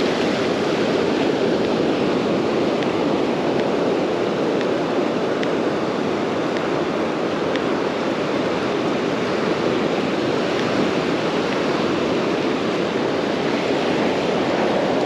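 Ocean surf breaking and washing up over the sand, a steady rush of waves and foam.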